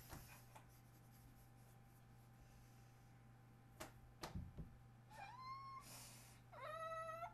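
Near silence with a low steady hum and a few faint clicks, then two short high-pitched whining cries near the end: the first rises in pitch, the second is held level for under a second.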